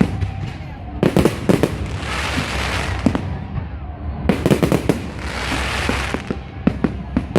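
Fireworks display: clusters of sharp bangs about a second in, again around four to five seconds in, and near the end, each followed by a hiss.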